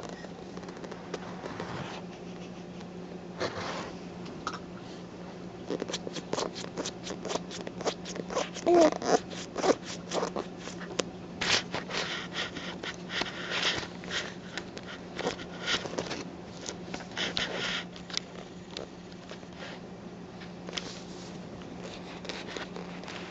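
A baby grabbing, scraping and mouthing a paperback book close to the microphone: a long run of quick crinkling, rasping and tapping of the cover, thickest through the middle, with a brief baby vocal sound about nine seconds in. A steady low hum runs underneath.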